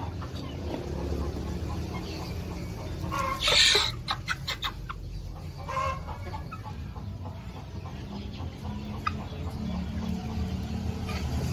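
Indonesian kampung chickens clucking. A loud burst comes about three and a half seconds in, followed by a quick run of sharp clicks, and a short call near the middle.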